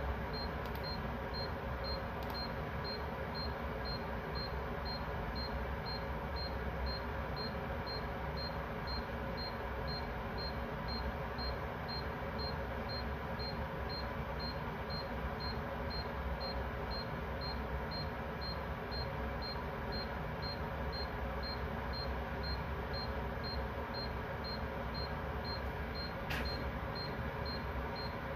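Electronic alarm beeping, short high-pitched beeps at about two a second, over a steady background hum and hiss. Two faint clicks come through, one a couple of seconds in and one near the end.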